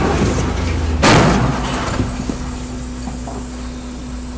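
A sudden loud crash of a vehicle collision about a second in, dying away within half a second. It is followed by the steady hum of a running vehicle and a few light knocks.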